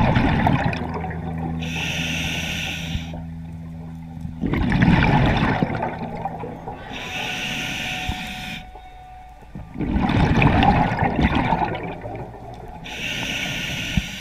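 Scuba diver breathing through a regulator underwater: a hissing inhale through the demand valve alternates with a gurgling rush of exhaled bubbles, three breaths about four and a half seconds apart.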